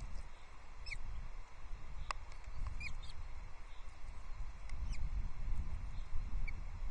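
Osprey chicks giving scattered short, high chirps as they beg at a feed, over a steady low rumble on the nest microphone, with one sharp click about two seconds in.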